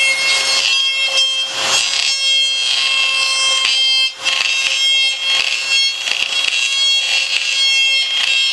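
DeWalt router running at high speed with a steady high-pitched whine, its bit cutting the fin box slot into a glassed surfboard with a rasping noise that swells and fades; the cutting briefly drops off about four seconds in.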